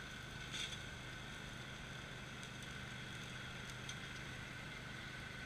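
Crossjet ride-on mower's engine running steadily at a distance as the mower drives across the field, a low hum with a higher steady whine above it. A short sharp click comes about half a second in.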